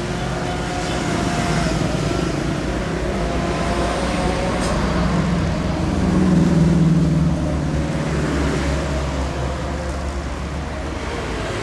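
CC 206 diesel-electric locomotive approaching, its diesel engine running with a steady low drone that swells loudest a little past the middle.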